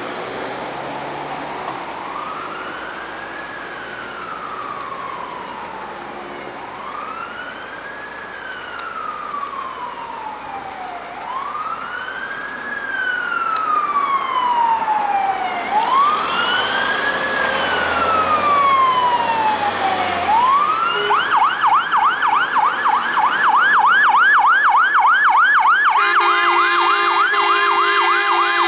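Electronic siren of a Scania P360 fire engine on an emergency run. It sounds a slow rising-and-falling wail that grows louder as the truck approaches, then switches about two-thirds of the way through to a fast yelp of about three sweeps a second. Near the end the truck's horns blast over the yelp.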